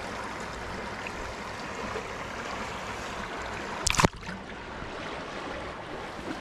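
Steady wash of river water over sandy shallows, with one short, sharp splash about four seconds in as a released bass kicks free of the hand.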